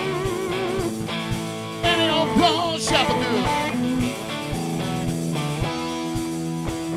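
Live classic rock band playing: two electric guitars, bass guitar and a drum kit, with a lead guitar line of bent, wavering notes over a steady bass and regular drum hits.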